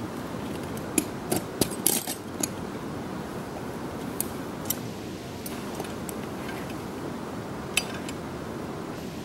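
Dry-tooling ice axe picks and crampon points clicking and scraping on rock, with metal gear clinking: a quick run of sharp clicks in the first couple of seconds, then a few single ones later. A steady hiss runs underneath.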